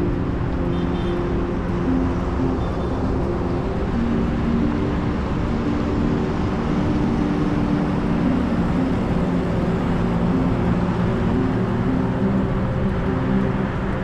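Steady rushing wind and road noise from a vehicle travelling along a paved road, with background music whose low notes change pitch every half second or so.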